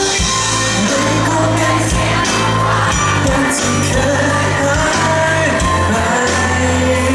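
A male singer singing a pop song into a microphone through a loud PA, over backing music with a steady drum beat and bass line.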